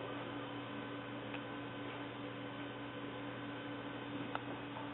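Steady low electrical hum, with a few faint ticks about a second in and near the end.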